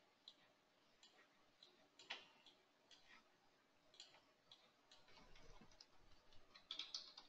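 Faint, scattered computer mouse clicks over near silence, irregular, with a slightly busier patch near the end.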